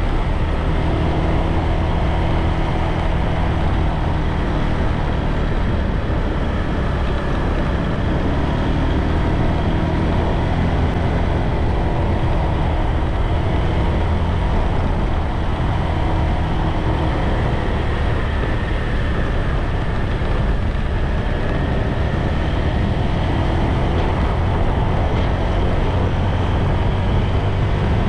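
Motorbike engine running steadily under heavy wind rumble on the microphone while riding along a road.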